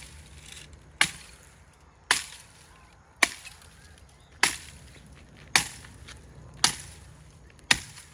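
A blunt farm cutting tool chopping at wood with seven evenly spaced strikes, about one a second. The blade is dull and is not cutting through.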